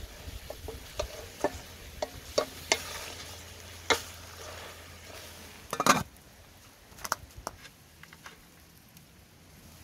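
Spatula stirring chicken in a metal pot over a fire, knocking against the pot again and again while the food sizzles. A louder clatter of several quick knocks comes about six seconds in, then a few lighter clicks.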